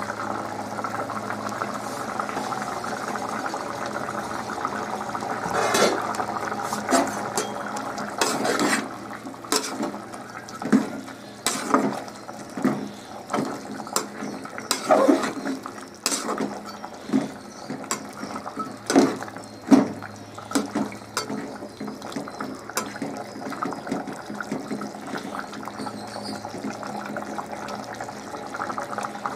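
Mutton curry simmering in an aluminium pot, with a metal ladle knocking and scraping against the pot as it is stirred, about fifteen clanks starting about six seconds in and stopping after about seventeen seconds.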